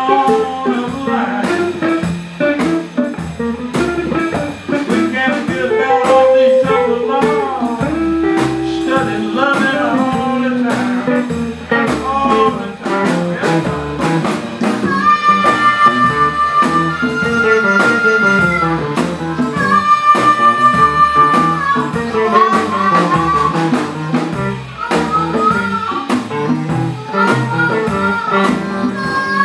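Live blues band: amplified blues harmonica played through a vocal mic over a drum kit, upright bass and a wash-tar (washboard-guitar hybrid). From about halfway the harmonica holds long, pulsing notes.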